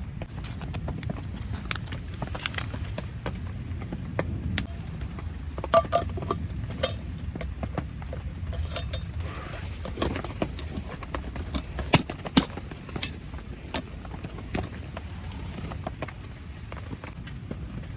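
Wood campfire crackling and popping: irregular sharp snaps, several loud ones in the middle stretch, over a steady low rumble.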